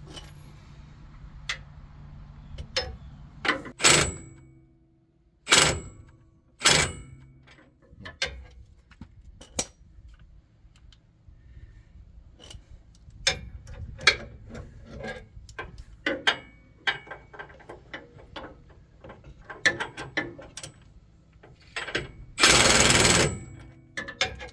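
Ratchet wrench and socket tightening the 19 mm bolt of a truck's adjustable track bar: irregular metallic clicks and clanks, with a few louder knocks, and a louder rattling burst about a second long near the end.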